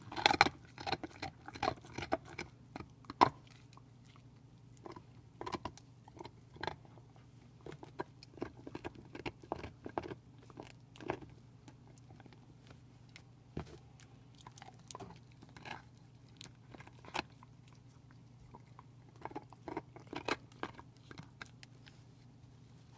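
Pit bull gnawing and crunching on a beef bone. The bites and cracks come irregularly, in quick runs at the start and again near the end, with sparser crunches between.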